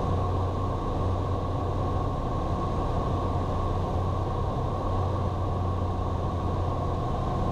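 Steady low drone of the Cirrus SR22's six-cylinder piston engine and propeller at reduced power during the landing approach.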